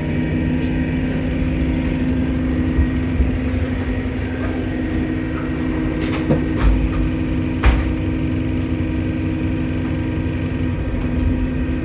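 Bus engine running steadily, heard on board, a low hum with a faint steady whine over it that the uploader puts down to a leaking turbo. A few short knocks or rattles come around the middle.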